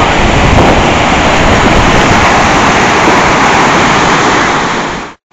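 River in flood rushing and churning over rapids: a loud, steady rush of water, which cuts out abruptly near the end.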